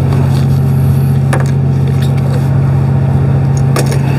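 A steady low motor hum, with a few light knocks about a second in and near the end.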